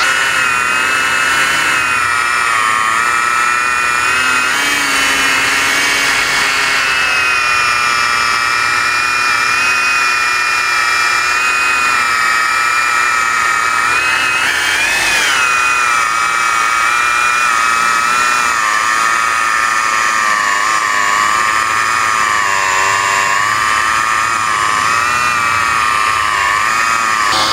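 JPT 21-volt cordless angle grinder used as a rotary polisher, its foam buffing pad running at slow speed and working cutting compound into car paint. A steady high motor whine that wavers slightly in pitch as the pad is moved over the panel, rising briefly about halfway through.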